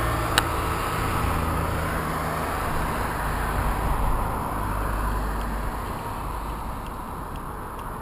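Road traffic noise: a steady rumble and hiss that slowly fades over the last few seconds, with one light click about half a second in.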